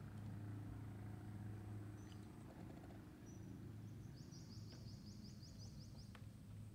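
Faint songbird calling: a couple of short high chirps, then about four seconds in a rapid high trill of about ten quick notes lasting about a second and a half. Under it runs a steady low hum.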